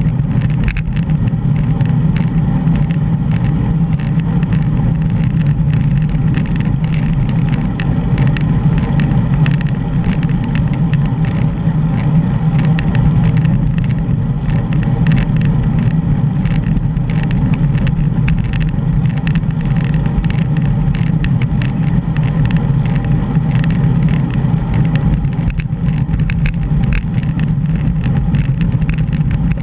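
Steady wind buffeting and road rumble picked up by a GoPro while cycling, with frequent small rattling ticks.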